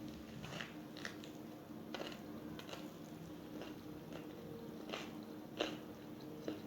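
Someone eating: irregular crisp bites and chewing crunches, a few louder ones about five and a half seconds in, over a faint steady hum.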